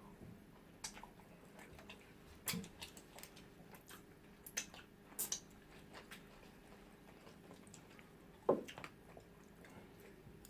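Eating sounds: scattered soft chewing, wet mouth clicks and smacks from swallowing pounded yam and eba with okra soup, with one louder smack about eight and a half seconds in.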